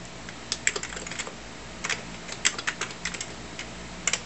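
Typing on a computer keyboard: keys clicking in short, uneven bursts with brief pauses between them, over a low steady hum.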